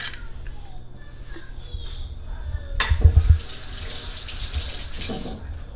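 Kitchen tap turned on with a knock about three seconds in, water running for about two and a half seconds, then shut off.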